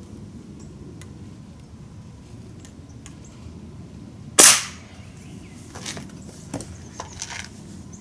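A single shot from a Daisy 1101WS .177 break-barrel spring-piston air rifle about four and a half seconds in: one sharp crack with a short ring. A few faint clicks follow.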